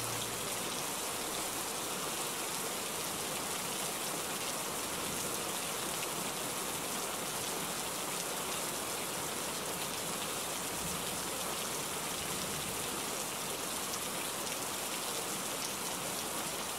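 Steady rain falling, an even hiss of many drops with no change in strength.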